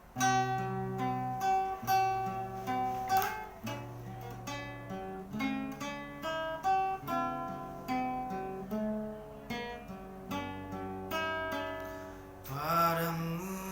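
Acoustic guitar music: a melody of plucked notes, each starting sharply and fading, with a brief sweeping sound near the end.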